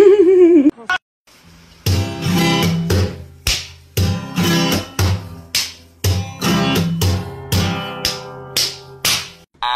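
A cat gives one drawn-out, wavering meow. After a short gap, acoustic guitar music follows: rhythmic plucked chords over a steady bass line.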